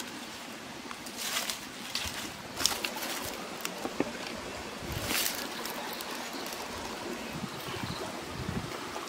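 Steady rush of a running stream, with a few short, crisp chewing and chopstick noises from someone eating.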